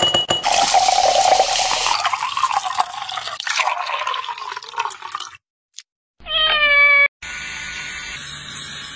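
Liquid pouring into a glass of ice for the first few seconds. Then comes a single meow, and then the steady whirr of an electric drill boring into a coconut shell.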